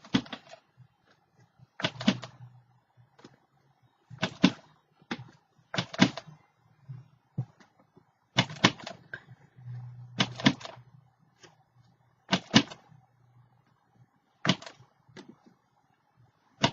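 Sharp taps of a mark-making tool on a journal page as small black marks are dabbed on, one or two quick taps about every two seconds.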